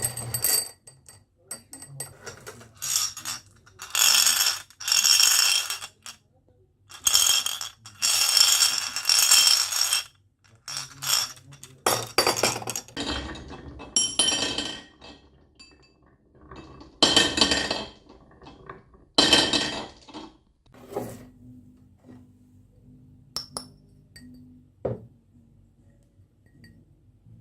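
Marbles rolling and clattering down a wooden marble run in a series of runs lasting one to three seconds each, with bright clinks. Near the end there are only a few short single clicks.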